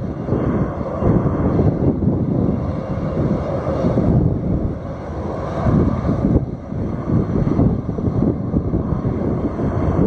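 Jet engines of a Condor Boeing 767-300 running loud during its landing roll just after touchdown, a continuous rough rumble that swells and dips.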